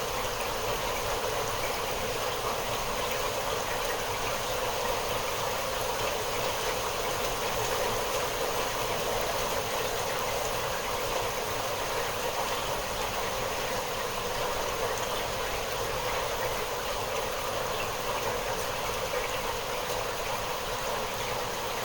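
Steady rain falling, an even hiss of drops with no gusts or thunder.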